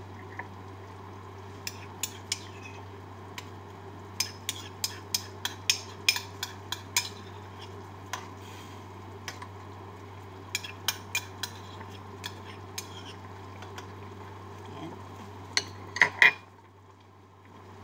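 A spoon clinks and taps against a stainless-steel pan while tomato paste is scooped into it: a run of sharp metal clicks in irregular clusters, ending in a couple of louder knocks near the end. Under it runs a steady low hum, which cuts off just after those last knocks.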